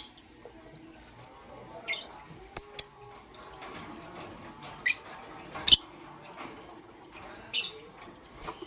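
Lovebird chirping: about six short, sharp, high-pitched chirps at irregular intervals, the loudest a little past the middle.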